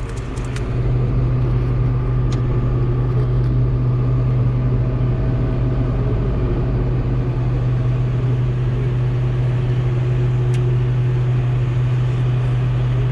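Combine harvester running steadily while harvesting corn, a constant low mechanical hum that swells during the first second and then holds even.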